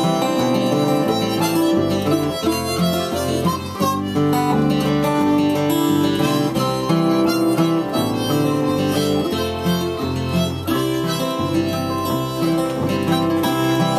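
Harmonica solo played with cupped hands, held notes and runs between verses of a folk song, over an acoustic guitar strumming chords.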